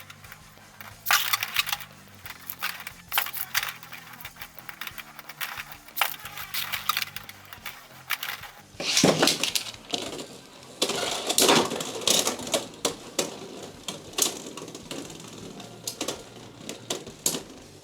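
Beyblade X spinning tops clashing and clattering in a plastic stadium: a string of sharp clacks. They come thicker and louder from about nine seconds in.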